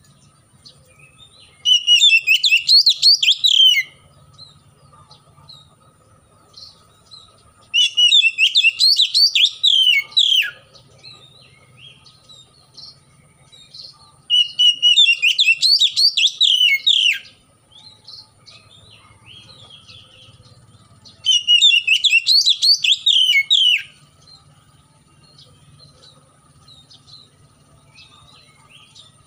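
Oriental magpie-robin (kacer) singing in four loud bursts of about two to three seconds each: rapid, varied high notes, with pauses of several seconds between bursts.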